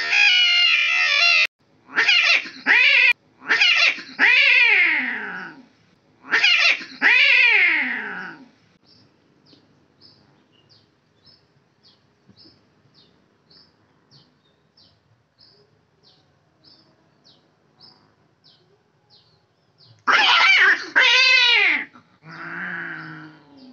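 Two tomcats caterwauling in a territorial standoff: long, loud, wavering yowls that rise and fall in pitch, several in the first eight seconds and another burst about twenty seconds in, followed by a lower growl near the end.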